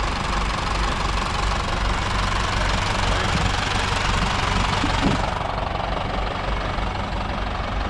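Farm-machinery diesel engine running steadily, a low even throb, under a hiss of background noise whose upper part thins out about five seconds in.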